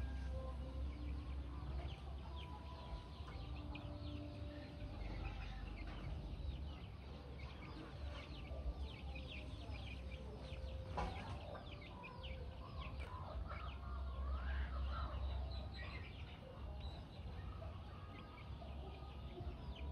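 Chickens clucking, mixed with many quick bird chirps through the middle stretch, over a steady low rumble.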